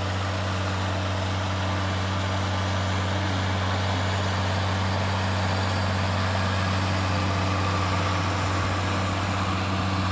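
Large farm tractor's diesel engine running steadily under load as it pulls a plough through weedy ground: an even, low-pitched drone that holds one pitch.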